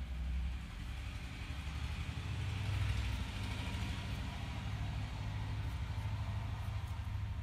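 Low steady rumble of a running motor, swelling a little about three seconds in.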